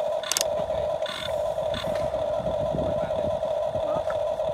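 Remote-control excavator's electric motor whining at a steady pitch over a low rattle, with a couple of sharp clicks near the start.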